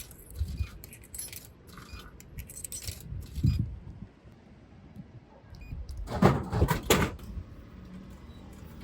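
Metallic jingling and clinking of coins being fed into a drink vending machine, then a low thump. About six seconds in comes a louder clatter as the drink drops into the tray and is taken out.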